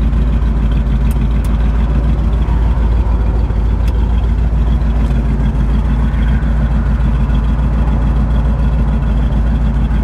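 1970 Chevrolet Corvette's 350 V8 with side exhaust pipes idling steadily, a constant low rumble heard from inside the cabin.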